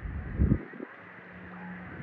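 Pool water splashing and sloshing right at the microphone as a swimmer ducks under, with one loud, brief low splash about half a second in and lighter splashes after.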